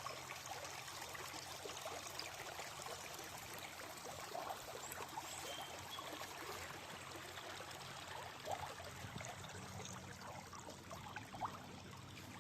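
Small spring stream trickling and gurgling steadily.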